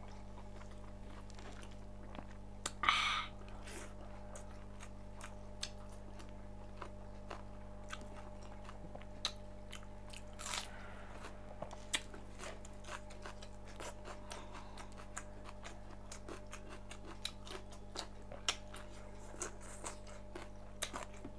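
Close-miked chewing of cooked pork: wet mouth clicks and smacks throughout, with a louder crunchy bite about three seconds in and another near the middle.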